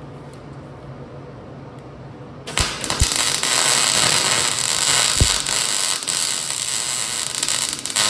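MIG welder arc crackling and hissing steadily as a bolt is welded onto a steel skid plate. It starts abruptly about two and a half seconds in, after a low steady hum.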